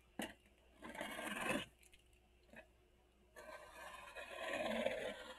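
Cardboard shipping box being cut open with a utility knife: a click, then two scraping strokes across the cardboard and packing tape, the second longer and louder.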